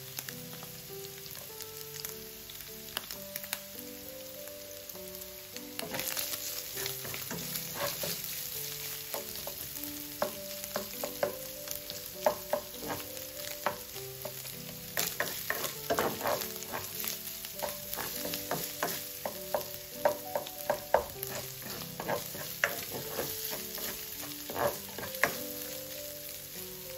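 Ground meat and diced onions sizzling in a nonstick frying pan, with a steady hiss. A spatula scrapes and taps against the pan as the mixture is stirred, the clicks coming thick and fast from about six seconds in.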